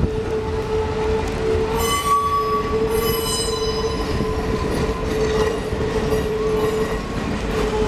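Santa Cruz Big Trees & Pacific Railway passenger train rolling past, its cars rumbling along the rails with a steady, high wheel squeal. Shriller squeals join from about two to four seconds in.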